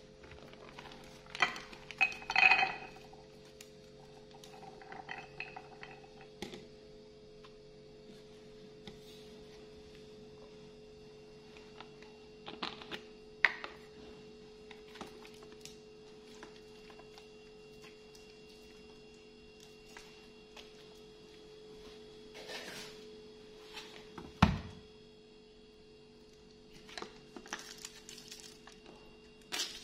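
Unshelled peanuts rattling from a plastic basket onto a ceramic plate about two seconds in. Scattered clinks and knocks follow as a bottle and cartons are set down on the countertop, the loudest knock well past the middle.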